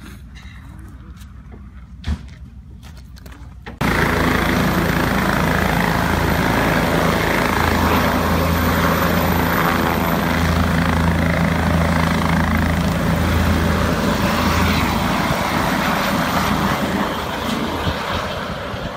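Helicopter hovering low close by: loud, steady rotor and engine noise that starts suddenly about four seconds in and eases off near the end. Before it comes a quieter low rumble with a single knock about two seconds in.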